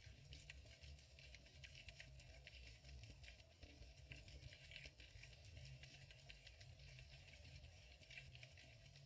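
Faint, muffled underwater sound picked up through a GoPro's waterproof housing: a steady low rumble with a scatter of fine crackling clicks.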